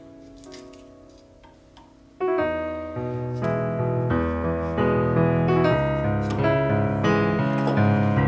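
Background piano music: soft held notes at first, then louder, fuller chords with a bass line coming in about two seconds in.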